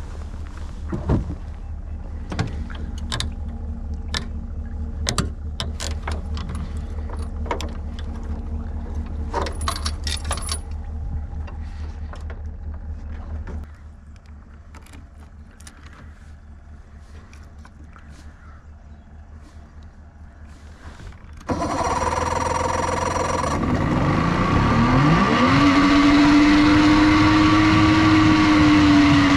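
Evinrude 70 two-stroke outboard motor starting up about three-quarters of the way through, revving up in pitch and then running steadily as the boat gets under way. Before that there is a steady low hum with scattered clicks and knocks, then a quieter spell.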